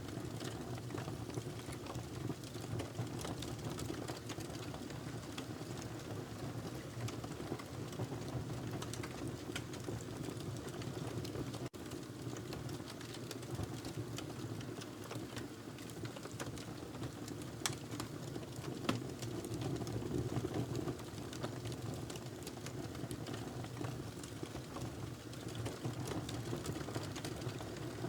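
Wood fire burning in a fireplace: a steady low rush of flames with scattered sharp crackles and pops, two of them louder in the second half.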